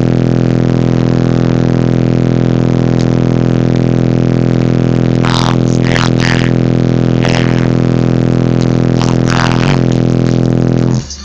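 Kicker square car-audio subwoofers playing one sustained, heavily distorted deep bass note at high volume inside the car cabin, with two short bursts of rattling about five and nine seconds in. The note cuts off suddenly near the end.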